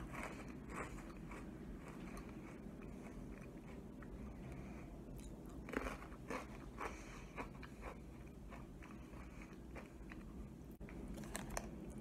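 A person chewing crunchy honey mustard onion sticks, a sesame-stick-style snack: quiet, irregular crunches, with small clusters of them about six seconds in and near the end.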